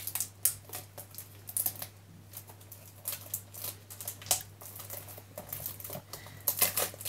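Small cardboard Funko Mystery Mini box being handled: irregular light taps, clicks and scrapes of fingers and nails on card as it is turned over and picked at to open it.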